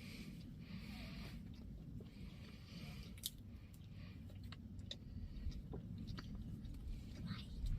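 Faint close-up chewing and crunching of a snack, with small scattered clicks, over a low steady rumble.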